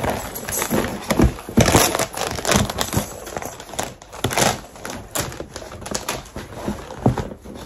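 Large quilted leather handbag being handled while a laptop is pushed inside it: irregular rustling and creasing of the stiff leather, with scattered light knocks and clicks.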